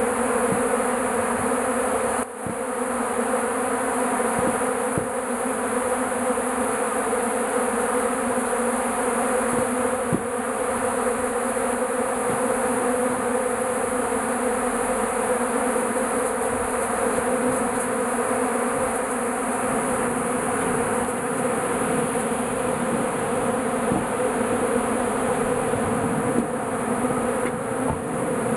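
Steady buzzing of a large crowd of honeybees swarming over melted beeswax and leftover honey, with a brief dip in loudness about two seconds in.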